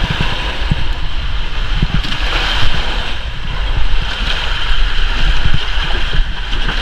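Shallow seawater lapping and splashing against coral rock, with wind rumbling and buffeting on the microphone.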